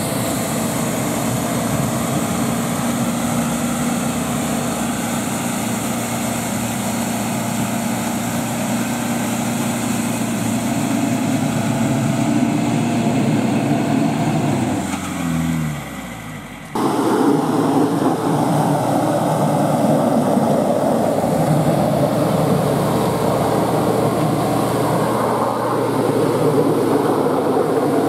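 GAZ Sobol 4x4 van working its way through deep mud on its front winch cable, engine running steadily under load. About 15 seconds in the sound sinks with a falling pitch, then cuts abruptly back in louder and rougher.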